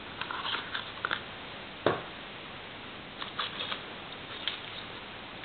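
A hand rummaging through loose foam packing peanuts in a cardboard box full of padlocks: light rustling and small clicks, with one sharper knock about two seconds in.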